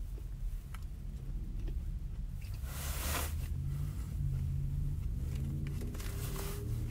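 Someone chewing a mouthful of burger over the steady low rumble of a car cabin, with a brief rustle about three seconds in. This is followed by several short hummed 'mmm' notes.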